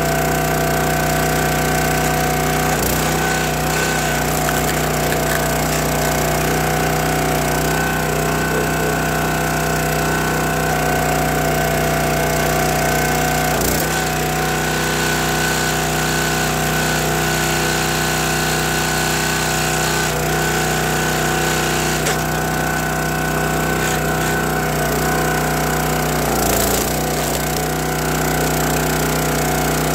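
Gas engine of a County Line hydraulic log splitter running steadily, with a few brief knocks scattered through.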